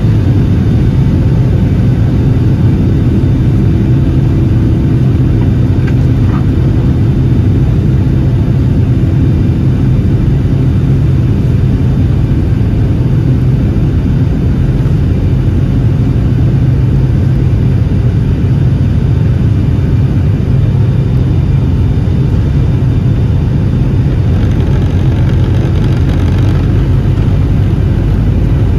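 Cabin noise of a Boeing 757-200 on its takeoff roll, heard from a window seat over the wing: the engines' steady, loud rumble and rush as the aircraft speeds down the runway.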